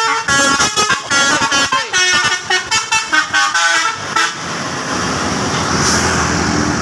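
A tour bus's basuri telolet horn plays a rapid melody of many short, changing notes for about four seconds. A steady rushing noise follows.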